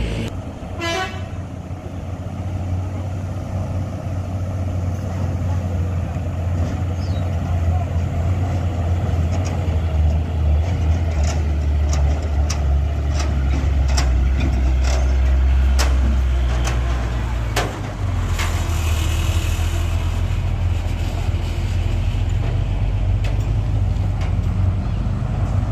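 Heavy diesel cargo truck's engine running under load as it climbs a steep dirt hill, a steady low drone that grows louder through the middle and drops off abruptly about two-thirds of the way through.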